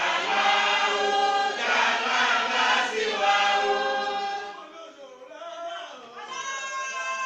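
A group of men's voices chanting together in unison. The chanting drops away for a moment a little over halfway through, then a long drawn-out note starts near the end.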